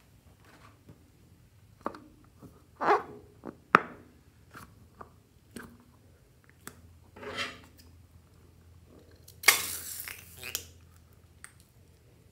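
A rubber balloon filled with clear glue being handled against a glass baking dish: scattered squeaks, crinkles and sharp taps. About two-thirds of the way in comes a louder rush of about a second as the balloon is cut open and the glue starts to pour out.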